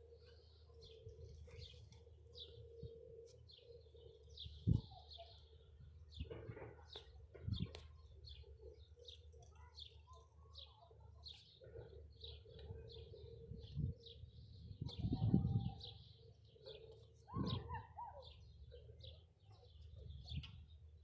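Small birds chirping, with many short high chirps coming several times a second throughout, and a few louder, lower calls now and then.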